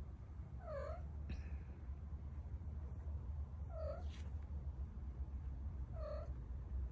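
Young kitten mewing: three short, high, rising-and-falling mews a couple of seconds apart.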